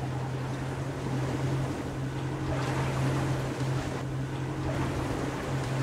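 Boat engine running with a steady low hum, under wind and the wash of calm sea water.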